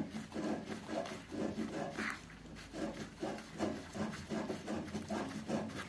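Threaded metal plug being unscrewed by hand from a cast-iron radiator: short, uneven rubbing and scraping strokes as the rusty threads turn under a gloved hand.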